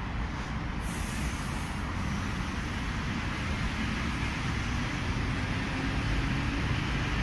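ED4M electric multiple unit pulling away from the platform: a steady low rumble that grows slowly louder, with a brief hiss about a second in.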